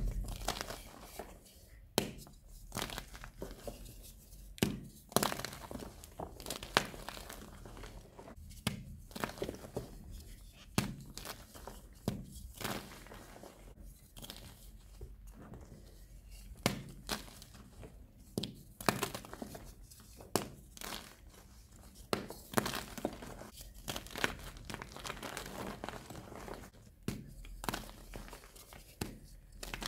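Soft blocks of magnesium carbonate gym chalk being crumbled and crushed by hand: irregular crisp crunches and cracks, about one or two a second, with powdery rustling between them.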